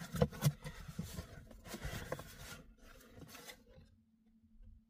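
Handling noise as a trucker hat and its packaging are handled: rustling with small clicks and knocks, stopping about three and a half seconds in, then only a faint steady hum.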